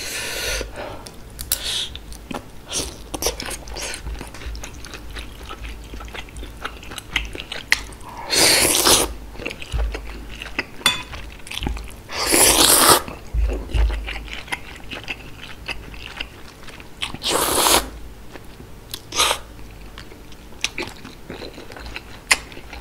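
Close-miked wet chewing and mouth clicks of someone eating spicy chewy noodles in broth with pig's feet. Three times the chewing is broken by a loud slurp of noodles lasting about a second, the longest near the middle.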